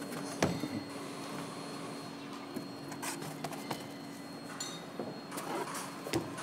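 A steady low machine hum with a few sharp knocks and clicks scattered through it, the loudest about half a second in and another near the end, along with light scraping of objects being handled.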